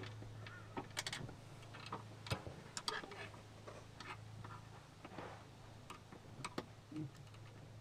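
Screwdriver driving screws into a steel compressor mounting bracket: faint, irregular clicks and ticks over a low steady hum.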